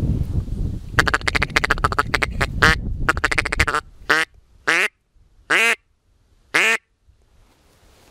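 Hunter's duck call (манок) blown to imitate a duck's quacking: a fast chattering run of short quacks for about three seconds, then four separate, longer quacks falling in pitch, about a second apart. A low rumble runs under the first part and stops about four seconds in.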